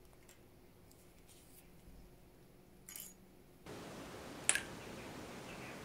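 Faint small clicks of steel watchmaker's tweezers handling a brass mainspring barrel, then, about four and a half seconds in, one sharp clink of the metal against a glass dish of cleaning fluid. A steady faint hiss begins a little before the clink.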